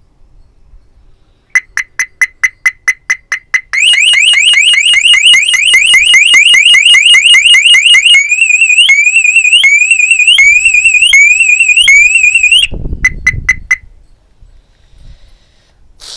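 Car alarm siren going through its tone cycle: a string of steady beeps about four a second, then fast rising chirps, then a rising warble, cutting off near the end with a few last beeps.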